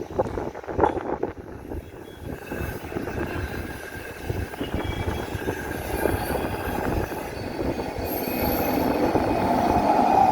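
Indian Railways express train approaching and growing steadily louder, its wheels knocking and running on the rails with thin high squealing tones.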